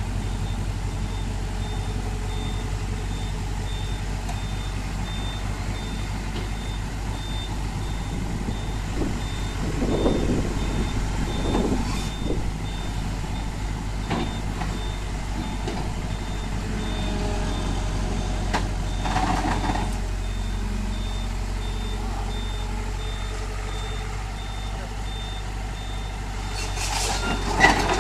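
Komatsu excavator's diesel engine running steadily under load while a backup-type alarm beeps at an even pace as the machine tracks onto the truck. Near the end there is a burst of metallic clanking and knocking, as the steel tracks come onto the truck deck.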